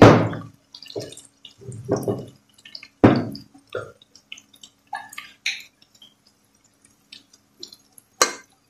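Garlic and cumin seeds frying in oil in an aluminium pot, with scattered small pops and crackles. A few louder knocks come near the start and about two and three seconds in, and a sharp click comes near the end.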